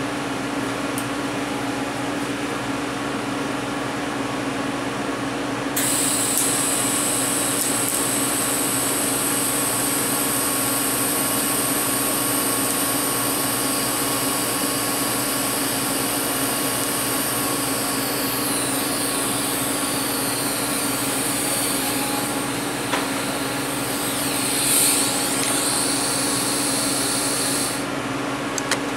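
TIG welding arc, set at about 200 amps, welding a nut onto a broken bolt stub in a cast-iron exhaust manifold. A steady high hiss and buzz starts about six seconds in, wavers in pitch in its second half and stops shortly before the end. A steady machine hum runs underneath.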